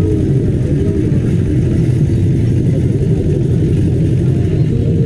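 Crowd babble: many voices talking at once in a dense gathering, over a heavy, steady low rumble.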